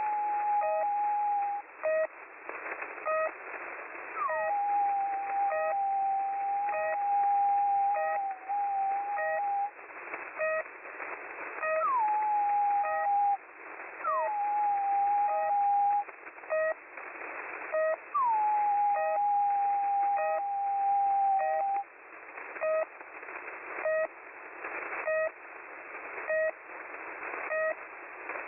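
Shortwave radio static with the short, regularly repeating pips of the Russian beacon 'The Pip' on 3756 kHz. Over it sound five whistled notes at about the same pitch, each sliding quickly down at the start and then held for one to five seconds. After the last one only the pips and static go on. The whistling sounds as if it might come from a human's lips, typical of a prankster on the frequency.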